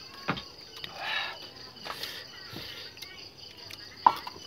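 Night insects, crickets, chirping steadily, with a few sharp clicks and knocks scattered through, the loudest near the end.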